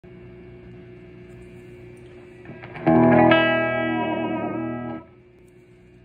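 Electric guitar played through a 1961 Fender 6G15 tube spring reverb unit: a chord struck about three seconds in rings for about two seconds and is cut off sharply. A steady electrical hum sits underneath before and after the chord.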